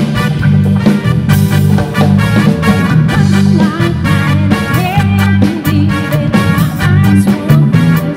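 Live band playing upbeat dance music through a PA: drums keeping a steady beat under bass, electric guitar and keyboard, with a melody line wavering above.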